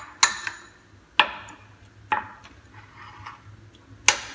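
Metal spoon stirring a thick garlic-and-shallot marinade in a ceramic bowl, clinking against the bowl four times, about a second apart, with the loudest clink near the end.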